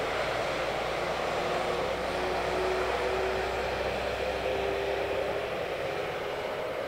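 Diesel passenger train running past and pulling away, a steady rumble of engine and wheels with a faint droning tone over it.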